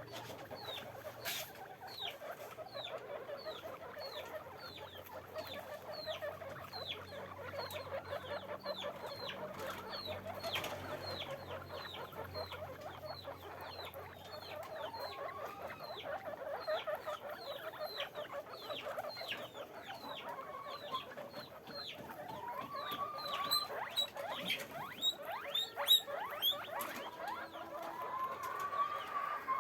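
Guinea pigs squeaking: a steady run of short, high chirps that fall in pitch, two or three a second, over a low chattering, with a few rising squeals near the end.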